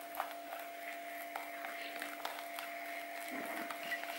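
Faint, irregular soft taps and scrapes of a plastic spatula folding whipped cream in a plastic bowl, over a steady low hum.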